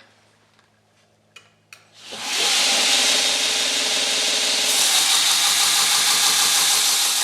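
Power saw cutting through a block of pecan wood, for knife handle scales. It comes in about two seconds in and runs loud and steady.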